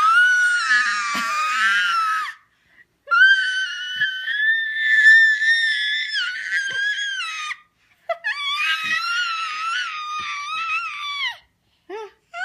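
A toddler's high-pitched playful screams: three long, wavering shrieks with short breaks between them, then a brief squeak near the end.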